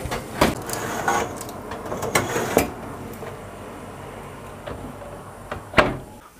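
Metal baking tray clinking and knocking against the oven rack as it is handled, a few sharp knocks in the first three seconds. Near the end the oven door shuts with one loud knock.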